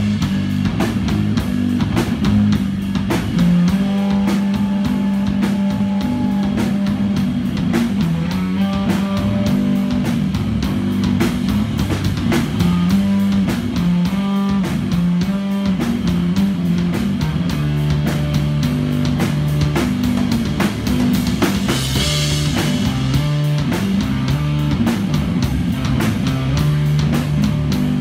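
Live doom metal from a bass-and-drums duo: a Rickenbacker electric bass holds long low notes that change every few seconds over a steady drum-kit beat, with a cymbal crash late on.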